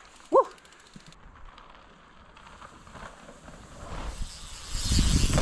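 A mountain bike's knobby tyres rolling and skidding over loose dirt, growing steadily louder as the rider comes down the trail and is loudest near the end as he passes close by. In the first second a rear hub's freewheel ticks briefly.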